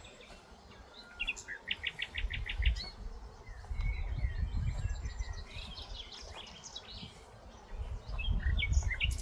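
Several birds singing and calling, with a quick trill of about seven even notes about two seconds in, over wind gusting on the microphone.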